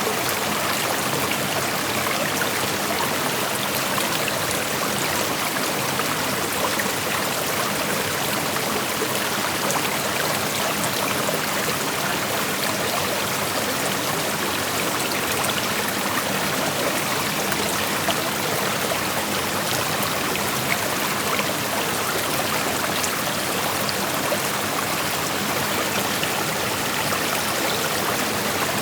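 Creek water rushing steadily over rocks, an even, unbroken splashing hiss.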